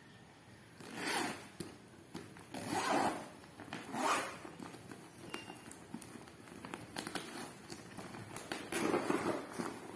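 Zipper on a clear plastic dress bag being pulled open in several short strokes.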